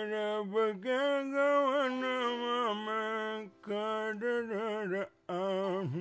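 A man singing a slow, drawn-out melody with long wavering held notes, in three phrases with short breaks between them.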